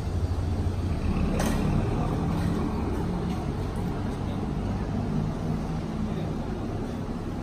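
Small motorcycle engines idling together: a steady low running, with one brief click about a second and a half in.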